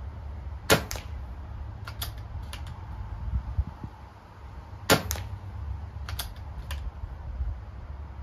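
BSA R10 pre-charged air rifle in .177 firing twice, about four seconds apart. Each shot is a sharp crack followed closely by a second, softer one. After each shot come a few lighter clicks as the rifle is cocked and reloaded.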